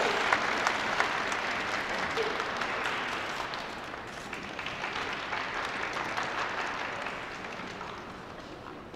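Audience applause, dying down gradually.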